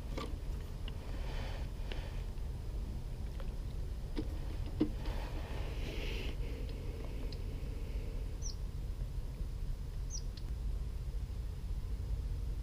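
Steady low outdoor rumble with a few faint rustles and knocks of handling fishing gear. Two short high chirps come about eight and ten seconds in.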